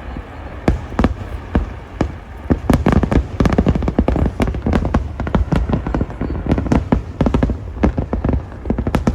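Aerial fireworks going off in quick succession: dense, overlapping bangs and crackles several times a second over a continuous low rumble of booms.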